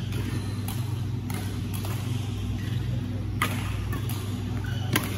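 Sharp cracks of badminton rackets hitting a shuttlecock during rallies, several over a few seconds, the loudest just before the end, over a steady low hum.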